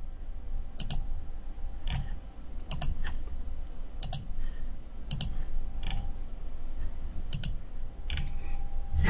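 Computer mouse button clicking, about a dozen sharp clicks at irregular intervals, several in quick pairs, over a faint low hum.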